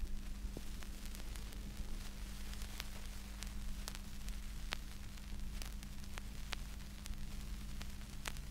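Low-level steady hiss and mains hum from a turntable and speaker system, with irregular sharp clicks and crackles of record surface noise.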